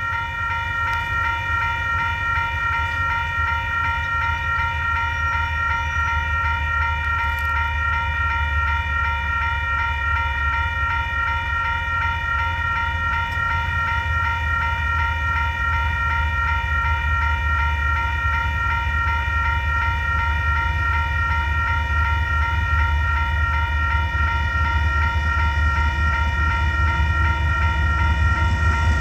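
Union Pacific freight train of gravel cars running past with a deep steady rumble, a steady high ringing above it, and the rumble growing a little louder near the end.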